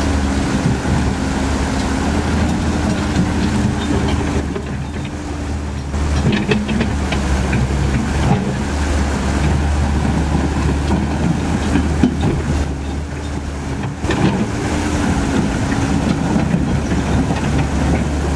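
Komatsu PC130F hydraulic excavator's diesel engine running steadily while the machine travels across a rocky riverbed. Its steel crawler tracks clank and grind over stones. The engine note eases off briefly twice.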